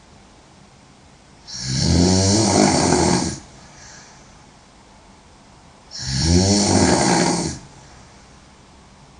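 A woman snoring loudly: two long snores about four and a half seconds apart, each a low wavering tone with a breathy hiss over it.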